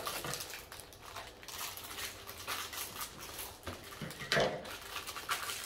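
Plastic packaging rustling, with light clicks and taps as small plastic items are handled, and a louder rustle about four and a half seconds in.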